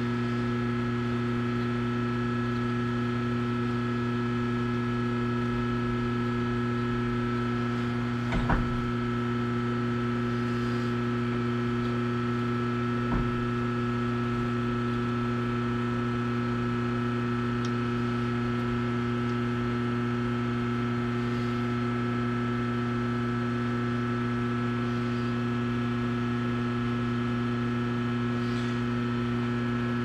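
Phase converter running with a steady electrical hum. Two brief knocks come about eight and thirteen seconds in.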